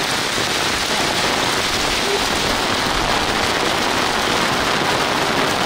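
Steady rain falling, an even, dense hiss of drops.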